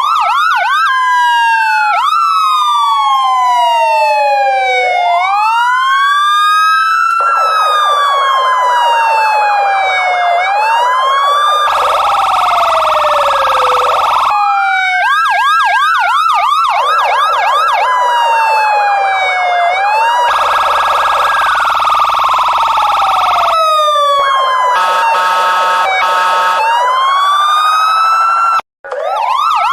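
Electronic police car siren running through its tones: slow wails that rise and fall, faster yelps and rapid warbles. A harsh, steady horn-like blast comes about twelve seconds in and again about twenty seconds in, and a short pulsing pattern follows near twenty-five seconds. The siren cuts out briefly near the end, then starts its cycle again.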